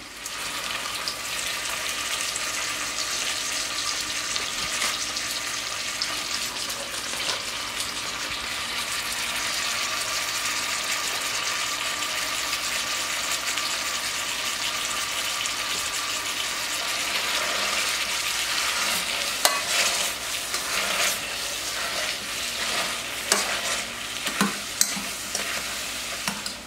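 Butter sizzling in a stainless-steel saucepan on a hot plancha, a steady frying hiss under the sweet potatoes. In the last several seconds, a wire potato masher knocks and scrapes against the pan as the soft sweet potatoes are crushed.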